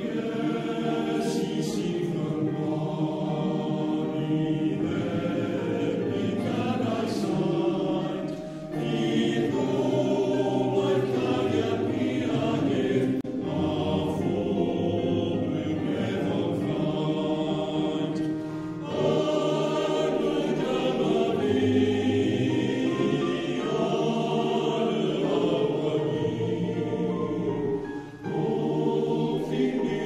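Male voice choir singing a slow piece in sustained chords, in long phrases with brief breaks between them.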